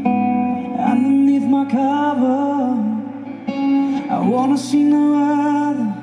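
A man singing a held, slow-moving melody into a microphone while playing an acoustic guitar, amplified at a live concert.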